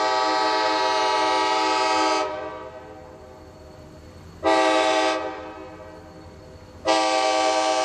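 Air horn of an EMD GP16 diesel locomotive sounding the grade-crossing signal: a long blast ending about two seconds in, a short blast around four and a half seconds in, then a final long blast starting near the end. It is a chord of several steady tones, the usual long-long-short-long warning for a crossing.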